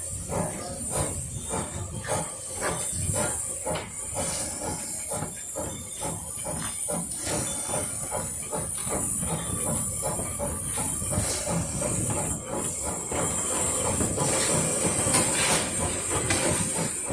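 Puffing Billy narrow-gauge steam train running: a steady rhythm of short beats over a constant hiss of steam.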